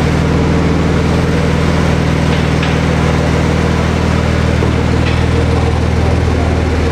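Car engine running steadily, a low drone at unchanging pitch.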